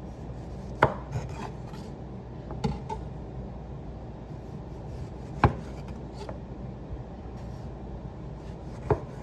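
A kitchen knife cutting tomatoes, with a few sharp knocks of the blade on the cutting board, irregular and a couple of seconds apart, over a steady low hum.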